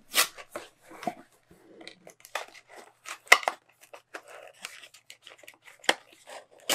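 Cardboard packaging and paper cards being handled and folded open. Irregular rustles, scrapes and clicks, with sharper snaps just after the start, about three seconds in, and at the end.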